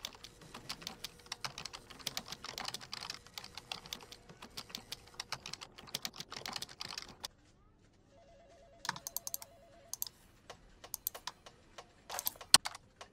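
Computer keyboard typing, rapid key clicks for about seven seconds. After a brief lull, an electronic telephone ring with a warbling tone sounds about eight seconds in, followed by scattered key and mouse clicks with one sharp, loud click near the end.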